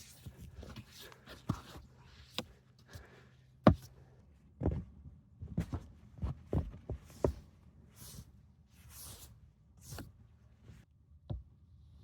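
Irregular knocks and clicks, the loudest about four seconds in, with a few short swishing sounds later on, over a low steady hum.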